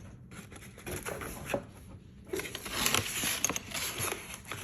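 Close-up eating noises: irregular rustling and crinkling with sharp little clicks as food is handled, wrapped and eaten, busiest in the second half.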